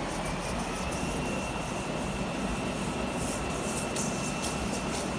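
Steady engine drone of a running vehicle, with a faint high whine that sets in just after the start and holds steady.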